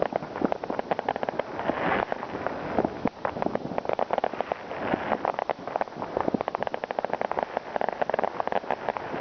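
New Year's Eve fireworks and firecrackers going off: a dense, unbroken crackle of many sharp bangs in quick, irregular succession.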